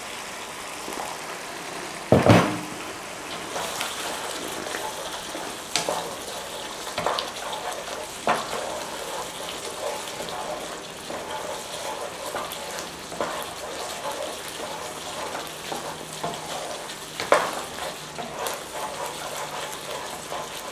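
Curry sauce sizzling in a frying pan as water is poured in, then stirred with a wooden spatula. The spatula knocks against the pan now and then, loudest about two seconds in.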